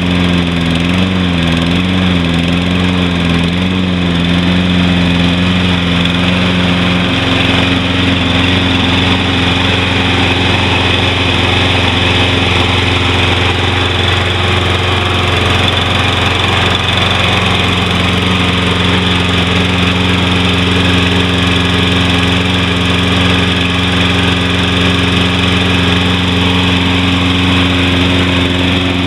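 Briggs & Stratton 190 cc engine of a Toro Personal Pace walk-behind mower running steadily as it warms up just after a cold start. Its speed wavers a little for the first few seconds, then steadies.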